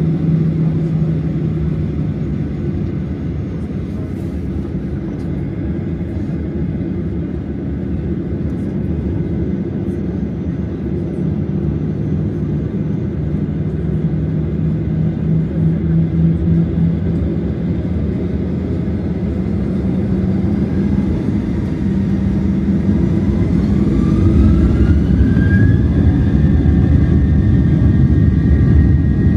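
Jet airliner's engines heard from inside the cabin: a steady low rumble at first, then about two-thirds of the way in a rising whine as the engines spool up to takeoff power. The whine then holds high and steady over a swelling rumble as the takeoff roll begins.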